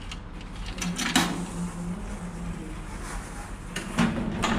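Token dropping into the slot of a coin-operated metal turnstile, with clicks about a second in and a louder clunk near the end as the turnstile arm is pushed round. A steady low mechanical hum runs underneath.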